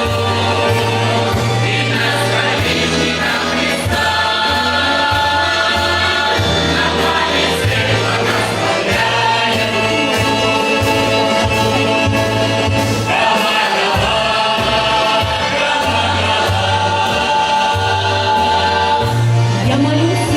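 Russian folk ensemble choir singing in harmony, with long held chords over a low bass part that moves in short steps.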